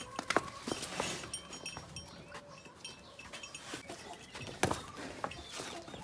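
Farmyard ambience: short high chirping calls scattered throughout, with sharp clicks and knocks, the loudest just after the start and again about two-thirds of the way through.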